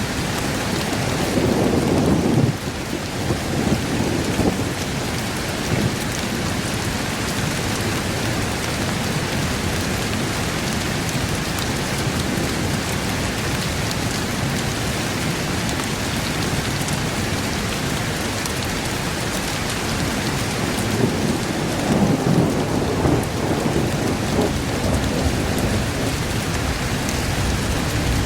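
Thunderstorm: steady rain with rolling thunder, one rumble in the first couple of seconds that cuts off suddenly, and another longer roll about three-quarters of the way through.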